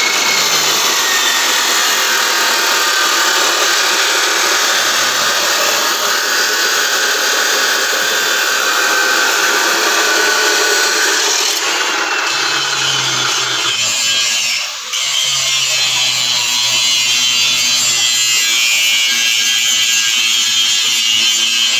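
Abrasive cut-off saw cutting through steel, a loud, steady grinding with a whine over it. About halfway through it gives way to a handheld grinder grinding steel clamped in a vise, throwing sparks.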